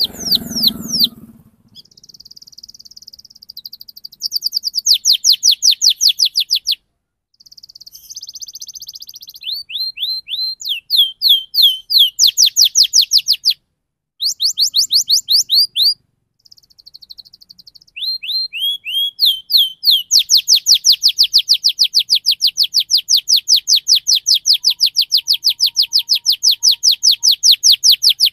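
Domestic canary singing in rolling trills: runs of fast, repeated high notes, each falling in pitch, at about six or seven a second, broken by short pauses. The last third is one long unbroken trill of about eight seconds.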